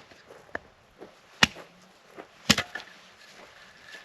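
Firewood being chopped: sharp, separate strikes, a light one first, then two hard ones about a second apart in the middle.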